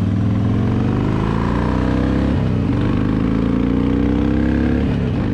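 Harley-Davidson V-twin motorcycle engine accelerating under way with wind rush. It rises in pitch, drops as it shifts up about two and a half seconds in, climbs again, and shifts once more near the end.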